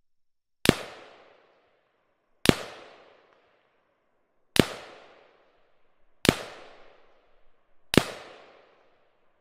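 Five rifle shots from an AK-105 (5.45×39 mm) fitted with a JMac AK-104/105 muzzle booster, fired at an unhurried pace about one and a half to two seconds apart. Each is a sharp crack followed by a fading echo lasting about a second.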